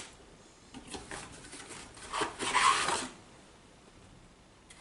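Packaging of a boxed hair curler rubbing and scraping as it is handled and opened: a few rough scrapes, the loudest just before the three-second mark, then quiet.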